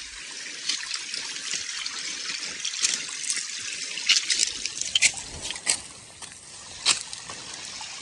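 A thin stream of water trickling down a steep rock face as a small waterfall, a steady hiss with scattered sharp ticks, most of them in the second half.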